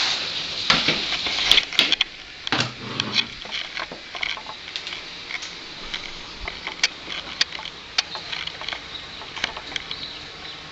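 Scattered, irregular ticks of hailstones falling and landing, over a faint hiss. A few louder knocks come in the first three seconds as a door is handled and opened.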